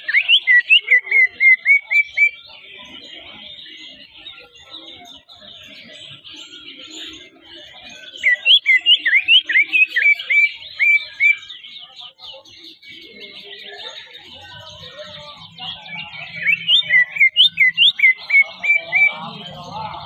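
Caged male cucak ijo (greater green leafbird) singing three loud bursts of rapid, sharp, sliding notes, each two to three seconds long. The bursts come at the start, about eight seconds in, and about sixteen seconds in.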